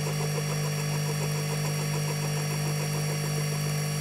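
Milling machine running with an end mill taking a slow conventional-milling pass along a small metal casting: a steady hum with a fast, even pulsing over it.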